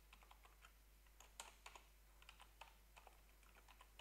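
Faint keystrokes on a computer keyboard: irregular single taps, a few a second, with short pauses between.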